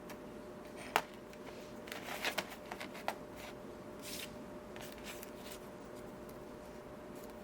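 Handling noise from soldering a stained glass panel: light clicks and taps of the soldering iron and solder against glass and lead. There is one sharper click about a second in, a cluster of taps around two seconds, and a brief hiss near the middle, over a faint steady hum.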